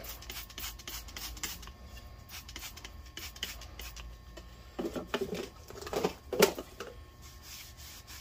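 Hands working Old English oil into a sanded wooden axe handle with a rag: light rubbing and scattered small clicks of handling, with a few louder squeaky rubs about five and six seconds in.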